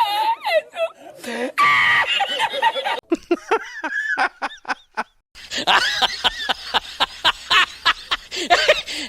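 Several short meme laughing clips played one after another, each cut off abruptly. The last, from about halfway through, is a long run of fast rhythmic laughter, about four bursts a second.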